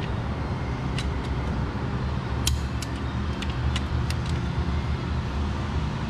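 Torque wrench being drawn up on a connecting-rod cap bolt toward the second-stage 32 ft-lb, giving a scatter of sharp, irregular metallic ticks over a steady low hum.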